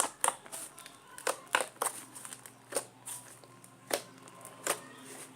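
Butter slime being squeezed and folded by hand, making irregular clicks and small crackles.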